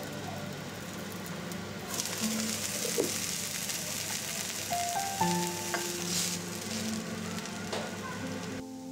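Potato fritters sizzling in hot oil in a stainless steel frying pan. The sizzle gets brighter and louder about two seconds in.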